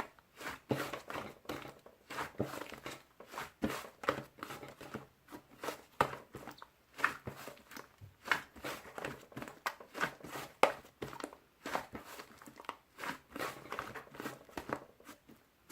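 Soft, fluffy clay slime being squished and pressed by hand, giving a constant run of irregular sticky pops and crackles, several each second.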